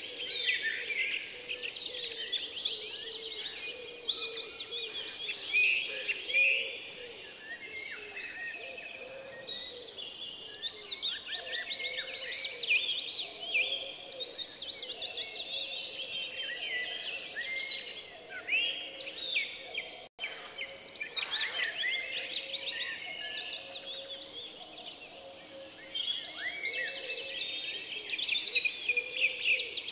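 Many small birds chirping and twittering in a dense, overlapping chorus of short high calls, broken by a momentary dropout about two-thirds of the way through.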